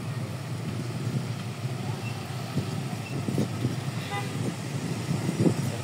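Road traffic running steadily, with a short horn beep about four seconds in.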